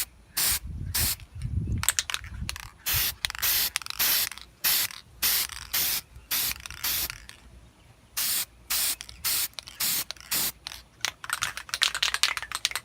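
Spray paint hissing out in many short bursts, about two a second, as a coat of paint goes on a headlight housing, with a brief lull around the middle and a faster, rattling run of bursts near the end.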